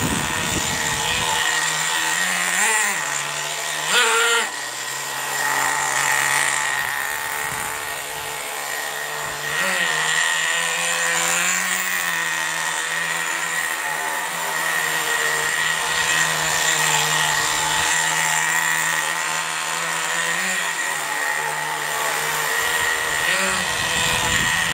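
HPI Bullet MT 3.0 nitro RC monster truck's small nitro engine running steadily near idle, with several short rev blips, the loudest about four seconds in. The engine is on default carburettor settings, which the owner says keep it from idling smoothly.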